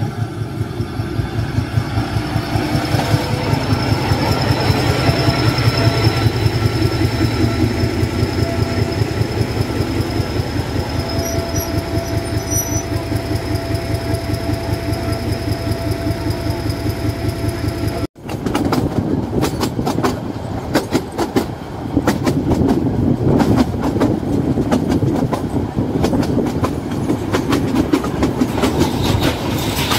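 Narrow-gauge diesel train: the locomotive's engine throbs with a fast, even beat. After a short break about 18 seconds in, wheels clatter irregularly over rail joints as the train rolls by.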